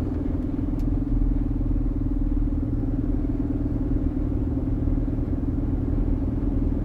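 Steady drone of a lorry's diesel engine with road rumble, heard from inside the cab while driving along at a constant pace.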